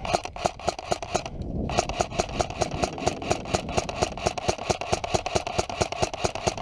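Airsoft gun firing rapid strings of shots, about seven a second, with a short break about a second and a half in before it fires again.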